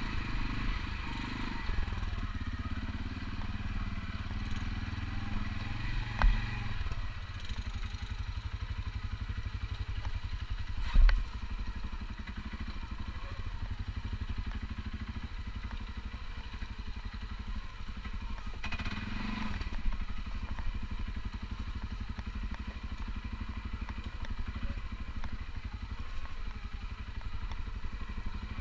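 Quad bike engine running at low speed as it crawls over rocky ground, with two sharp knocks about six and eleven seconds in.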